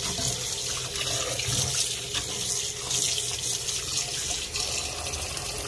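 Kitchen tap running in a steady stream into a stainless steel bowl of water and soaked lily flowers in the sink.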